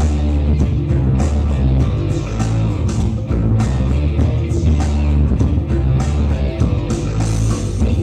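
Loud recorded dance music with a steady drum beat, bass and guitar, played back for a group dance.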